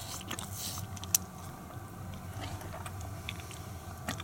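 Adult cheetah grooming a person's hand and head at close range: wet licking and tongue rasping with scattered short clicks, one sharp one about a second in, over a steady low rumble.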